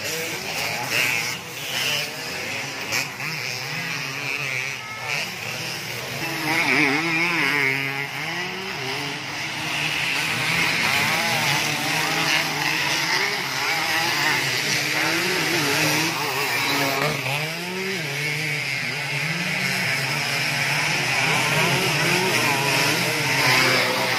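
Dirt-bike engines revving hard as the racing motorcycles pass on the dirt circuit, their pitch rising and falling with throttle and gear changes, several bikes overlapping at times.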